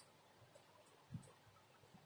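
Near silence: faint room tone, with one short, soft low thump about a second in.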